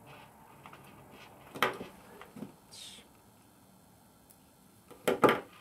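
Small clicks and snaps of a fine wire being worked with a small hand stripping tool, with a short squeak near the middle and a sharp double snap near the end.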